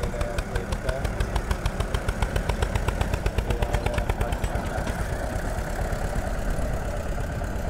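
Old diesel tractor engine running close by with a rapid, even thudding of about six beats a second, over the steady running of a JCB backhoe loader. The thudding eases after about five seconds, leaving the steady engine rumble.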